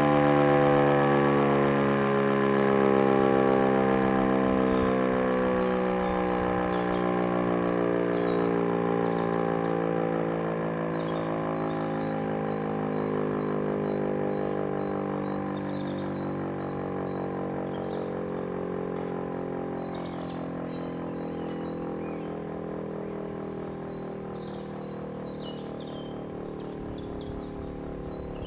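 Elektror E57 electromechanical civil-defence siren winding down, its wail falling slowly and steadily in pitch as it fades.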